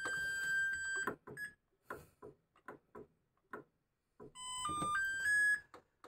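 Control panel of a Maunfeld MFWM127WH top-loading washing machine: a held electronic beep for about a second, then a few light clicks, then a short rising melody of electronic tones. This is the machine's polyphonic signal sound.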